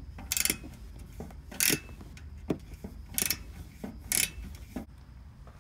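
Hand ratchet with a hex-bit socket clicking in short back-strokes, about four quick bursts of clicks with fainter single clicks between, as it tightens Allen bolts on a light bar's mounting bracket.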